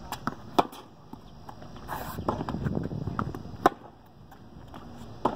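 Tennis ball being struck by rackets and bouncing on a hard court during a rally: sharp pops, the loudest about half a second in and again a little past the middle, with fainter hits and bounces between.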